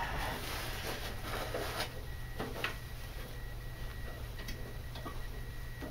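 Scattered light clicks and knocks with soft rubbing as a belt is worked by hand onto a snowblower pulley, over a steady low hum.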